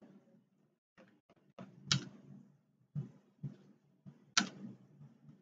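Computer keyboard keys being pressed: a few light keystrokes and two sharper, louder clicks about two and a half seconds apart.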